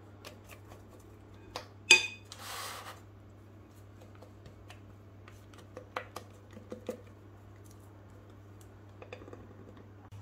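Silicone spatula and glass mixing bowl handling while thick chocolate cake batter is poured into a springform pan: a sharp clink about two seconds in, a short soft scrape right after, then a few faint taps, over a low steady hum.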